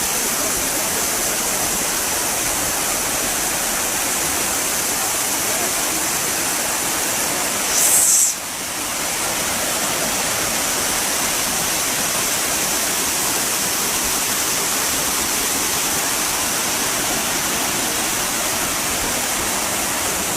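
Water gushing steadily from a well bore that has struck a water-bearing layer, an even rushing noise. About eight seconds in there is a brief louder hiss, then a momentary dip.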